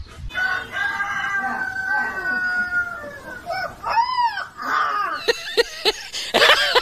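Young puppy howling. It gives one long held, slightly falling note, then several shorter rising-and-falling howls, with a louder, harsher call near the end.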